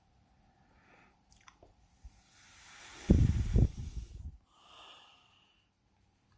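A person breathing close to the microphone. A drawn-in breath is followed, about three seconds in, by loud rumbling puffs of breath against the mic, then a short hiss of breath.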